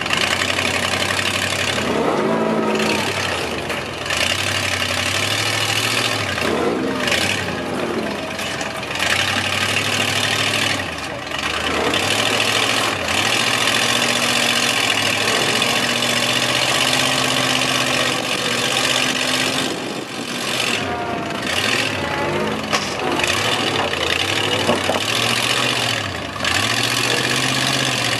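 Rock crawler buggy's engine revving hard under load as it climbs a rock waterfall, the pitch repeatedly rising, holding and falling with the throttle, and dropping off briefly a few times.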